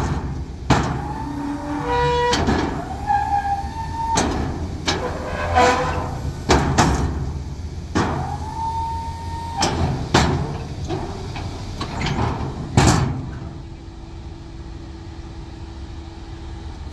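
Snowplow's hydraulic pump running in short bursts, each a whine that rises and holds for a second or so as the V-blade is raised, lowered and angled, with sharp clunks as the blade shifts and stops, the loudest about 13 seconds in. Under it the RAM 2500's 6.4-litre Hemi V8 idles with a steady low hum.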